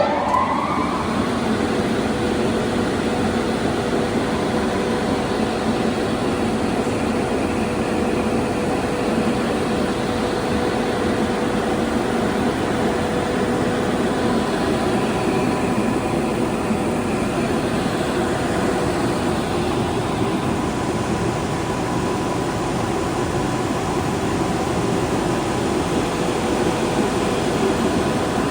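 Polyglass LV1500 vertical glass washing machine running: its motors spin up with a rising whine that settles about a second in, then run on as a steady whir and hiss with a constant hum tone.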